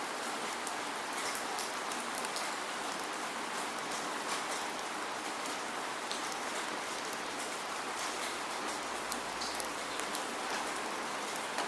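Steady rain falling, no thunder: an even hiss with many small drop ticks pattering on a surface.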